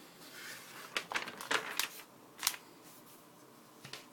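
Glossy magazine pages being handled and turned: a soft rustle, then a quick run of papery flicks and slaps about a second in, and one more sharp flick midway.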